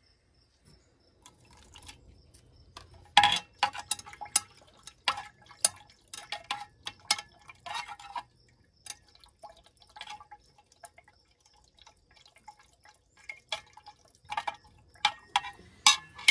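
Glass stirring rod clinking against the inside of a glass beaker while stirring a dark silver oxide slurry. Irregular ringing clinks start about three seconds in and come several to a second at times.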